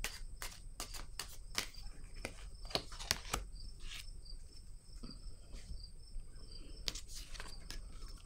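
Tarot cards being handled, making a run of light clicks and snaps that come thick for the first few seconds and then thin out. Under them is a faint high chirp repeating about three times a second.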